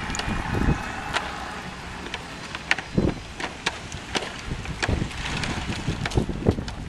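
Large plastic floor-protection panels knocking and clattering irregularly as they are handled, set down on asphalt and fitted together, over a steady rumble of wind on the microphone.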